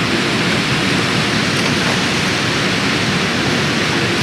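Steady rushing of river water running over rocks, an even, constant noise.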